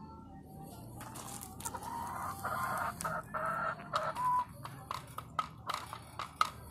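A rooster crows once, a call of about three seconds ending on a held note. Then come a run of sharp taps as a rooster pecks at a plastic feed dish.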